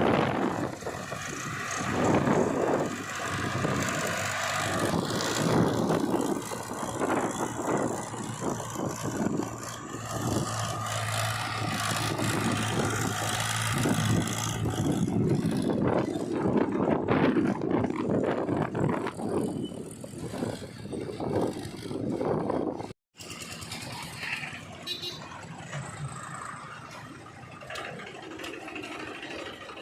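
A JCB 3DX backhoe loader's diesel engine running while it works, with a low steady hum and irregular clatter. It cuts out abruptly about two-thirds of the way through and comes back quieter.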